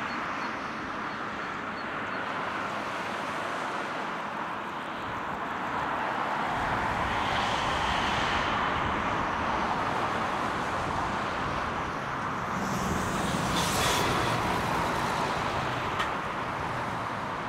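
Airbus A350-900's Rolls-Royce Trent XWB engines at takeoff thrust during the takeoff roll: a steady rush of jet noise, with a deeper rumble filling in about six seconds in.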